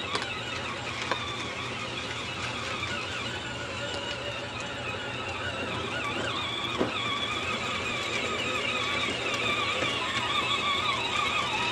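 Battery-powered John Deere ride-on toy tractor driving over dirt, its electric motor and gearbox giving a continuous high whine that wavers in pitch, growing louder toward the end.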